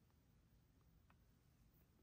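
Near silence: room tone with a couple of faint ticks about a second apart.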